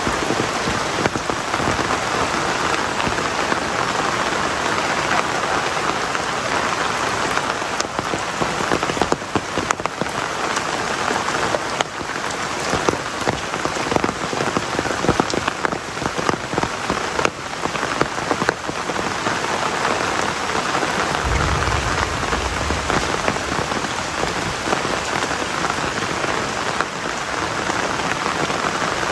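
Heavy rain pouring steadily, dense with sharp individual drop hits. A brief low rumble comes about three-quarters of the way through.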